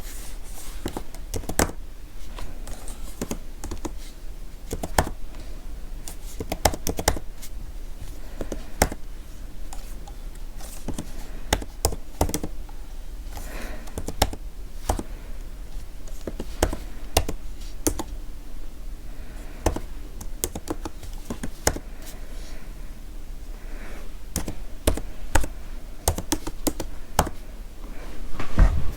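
Computer keyboard being typed on: irregular clicking keystrokes with brief pauses, a louder flurry of key presses near the end.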